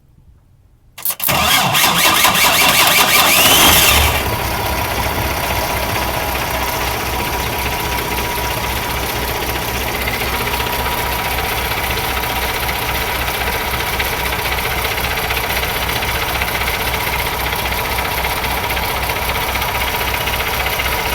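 Kenworth T680's PACCAR MX-13 inline-six diesel cranked by its starter, which is jumped at the solenoid post to bypass a failed solenoid relay. The cranking starts suddenly about a second in, the engine catches after about three seconds, and it settles into a steady idle.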